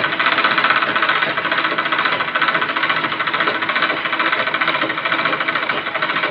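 Pico (picot-edging) sewing machine running steadily at speed, stitching cloth with a rapid, even rhythm of needle strokes.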